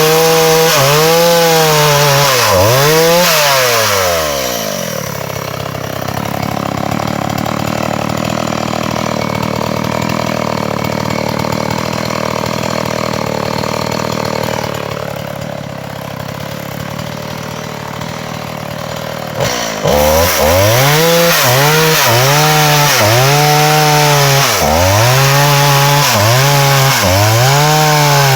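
Chainsaw engine revving up and down over and over, about once a second. About five seconds in it settles to a steadier, lower running for some fifteen seconds, then revs repeatedly again from about twenty seconds in.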